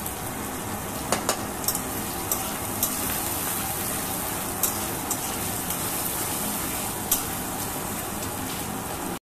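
Chopped onions and vegetables sizzling as they fry in oil in a metal kadai, with a spatula stirring them and clicking sharply against the pan about eight times.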